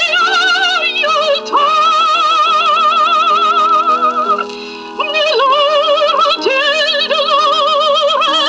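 A 78 rpm record of a woman singing an Italian operatic song with a wide, wobbling vibrato over steady accompaniment. It is played on a vintage radio-phonograph, so the sound is thin with no bass. There is a brief break between phrases about four and a half seconds in.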